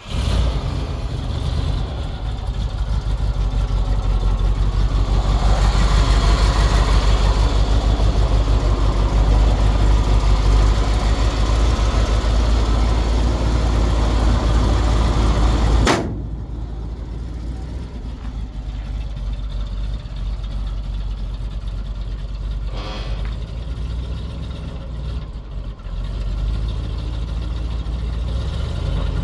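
1978 Chevrolet C65 grain truck engine idling steadily, heard close at the open engine bay. About halfway through, the sound drops suddenly to a quieter level.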